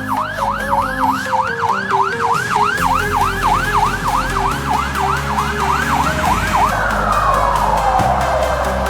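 Emergency-vehicle siren in a fast yelp, about three up-and-down sweeps a second, switching a little before seven seconds in to a slow wail that falls and starts to rise again. Background music with steady low notes runs underneath.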